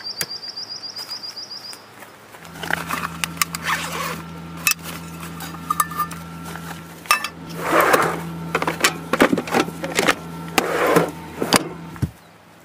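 Camp cookware and gear being handled: scattered clinks, knocks and rustling, over a steady low hum that cuts off near the end. It opens with a quick run of rapid high ticks lasting under two seconds.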